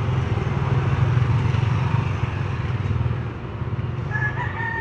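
A motor vehicle running steadily, a low engine hum under wind and road noise. Near the end a rooster crows, one drawn-out call.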